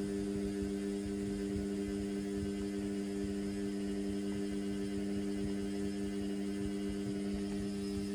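Indesit washing machine's drain pump running with a steady electrical hum that switches on just before and holds even throughout, over a low rumble from the machine.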